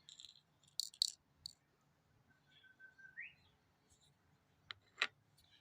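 Faint bird chirps and a short whistled note that holds, then rises, mixed with a few light clicks.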